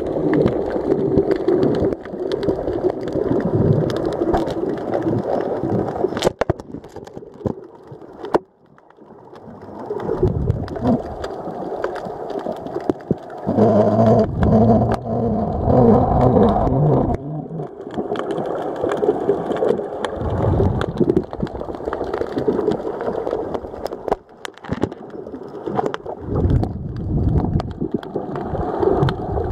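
Muffled underwater noise from a drop camera's waterproof housing hanging on a line, with scattered clicks and knocks. The sound dips almost away twice, and a wavering pitched hum comes in for a few seconds about halfway through.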